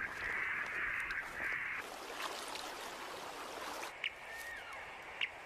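A crow gives three long, harsh drawn-out caws, then a radio-tracking receiver gives two short beeps about a second apart near the end as it picks up a tagged animal's transmitter.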